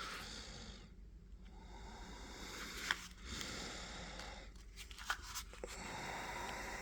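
Quiet rustling and handling of old cardboard ammunition boxes and loose .22 cartridges, with a few light clicks about three and five seconds in.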